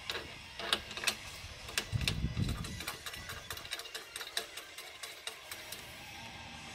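Plastic A-pillar trim of a Toyota Prado 90 Series being worked by hand: a run of sharp plastic clicks and snaps from the trim and its clips, with a dull thump about two seconds in.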